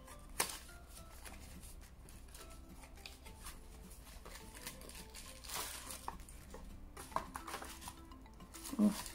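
Small cardboard product box being opened by hand: scattered light clicks and rustles as the end flap is pulled open and the contents slid out, with soft background music.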